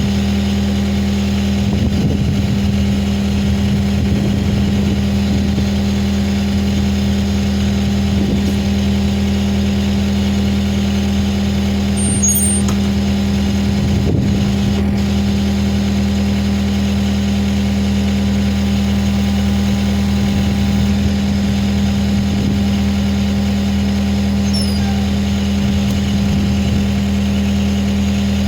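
Skid steer engine idling steadily, an even unchanging hum.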